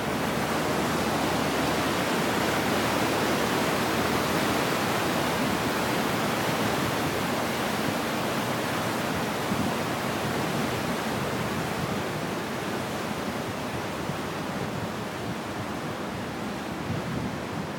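Steady rushing of water churned up by an inland cargo ship's propeller as the vessel passes beneath and draws away, slowly fading toward the end.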